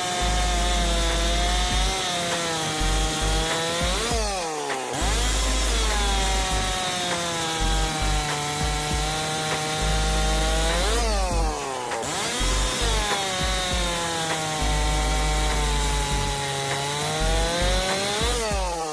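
STIHL 064 single-cylinder two-stroke chainsaw cutting wood under full throttle. Through each of three long cuts the engine pitch sags under load, then rises sharply as the chain breaks free. Background music with a low pulsing beat runs underneath.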